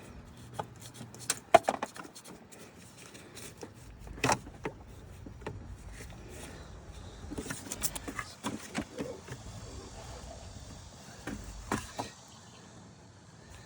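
Scattered light clicks and knocks of a transmission line and its quick-connect fitting being worked off a car's transmission oil cooler, with a sharp knock about a second and a half in and another about four seconds in.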